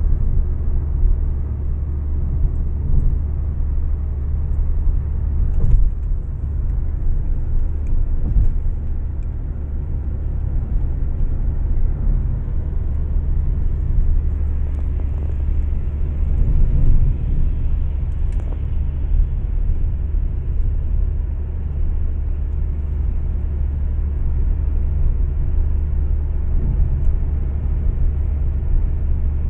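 Car driving at highway speed, heard from inside the cabin: a steady low rumble of road and engine noise, with a couple of faint knocks.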